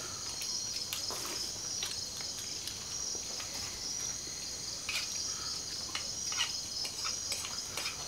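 Steady chorus of night insects such as crickets, a continuous pulsing trill, with a few faint light clicks of utensils against plates.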